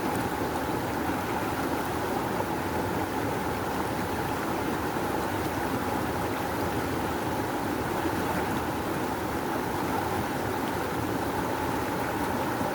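A rushing river's water flowing, a steady, even rush with no breaks.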